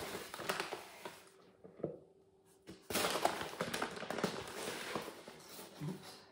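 Paper flour bag rustling and crinkling as a scoop digs into the flour, with small clicks and taps. Two spells, the second starting about three seconds in after a short quiet gap.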